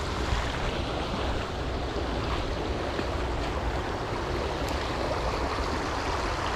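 Steady rushing of creek water flowing over rocks, an even hiss that cuts in and out abruptly.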